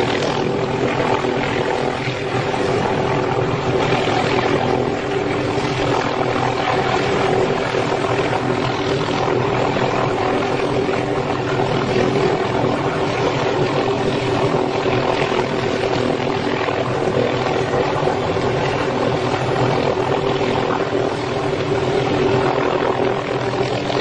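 Helicopter hovering in place: a constant, even drone of rotor and engine with several steady held tones, loud and unchanging throughout.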